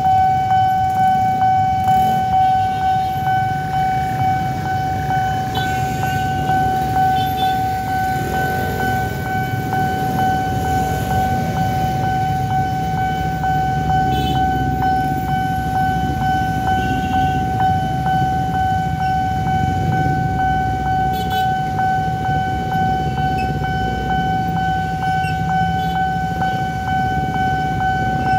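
Railway level-crossing warning alarm sounding one steady electronic tone, with a faint pulse about twice a second. Under it, the engines of motorcycles and cars queued at the lowered barrier are running.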